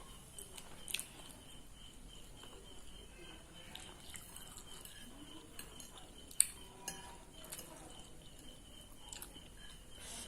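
Cutlery clinking against a plate while eating noodles, a few sharp clinks spread out, the loudest a little past the middle, with quiet chewing between them.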